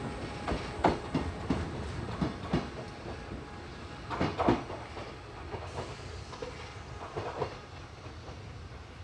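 Train running on rails: a continuous low rumble with irregular clacks and knocks, easing off in the second half.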